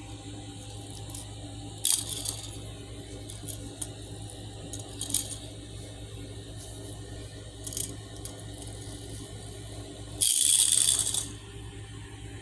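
Small pullback toy robot dog being handled, with a few sharp plastic clicks, then its pullback gear motor rattling loudly for about a second near the end.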